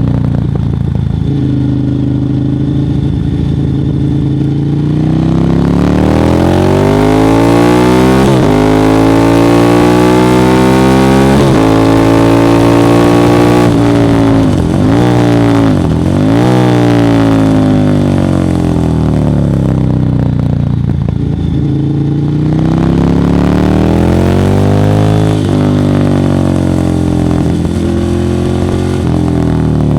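Ducati Monster 1100 EVO's air-cooled L-twin engine through a Termignoni exhaust, its revs climbing and falling several times. There is a long rise in pitch, two quick dips a little before halfway, then a lower stretch and another climb.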